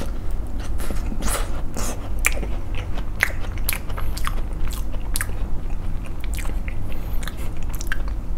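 A bite into a tart with a crisp pastry crust, then chewing close to the microphone, with irregular crunches of the pastry.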